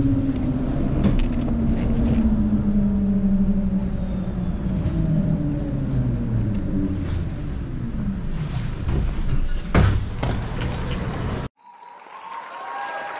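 Tram traction motors whining over the rumble of the wheels on the rails, the whine falling slowly in pitch as the tram slows. There is a sharp knock about ten seconds in. Near the end the tram sound cuts off and a light tune with gliding notes begins.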